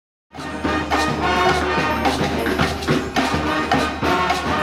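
Brass street-band music, horns over drums with a steady beat of about two strokes a second, starting abruptly just after the opening.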